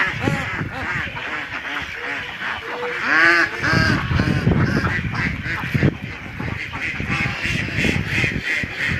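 A flock of domestic ducks and geese calling, many overlapping quacks and honks repeated throughout, loudest about three seconds in.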